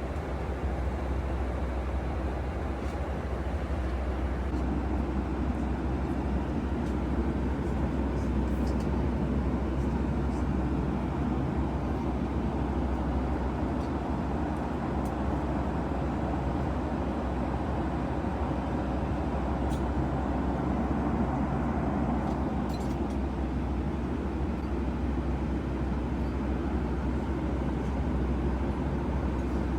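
Steady cabin noise of a Boeing 757-300 in flight: the even rush of airflow and engines, strongest in the low range, with a few faint ticks.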